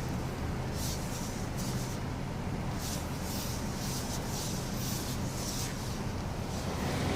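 Repeated short scraping, grinding rubs as a car's wheel is turned, over a steady low hum. The owner thinks the grinding may come from a worn-out part.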